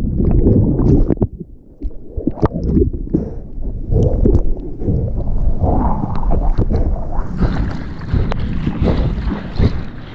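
Seawater splashing and sloshing close to the microphone in uneven surges, with wind buffeting the microphone.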